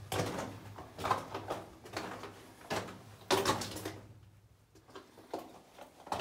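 Footsteps crunching and scuffing on loose rock and gravel, in an irregular walking rhythm, with a brief lull about four seconds in.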